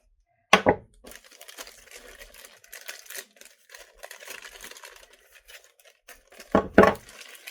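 Plastic packaging rustling and crinkling as small parts are unpacked, with a sharp thump about half a second in and a louder double thump near the end as items are set down.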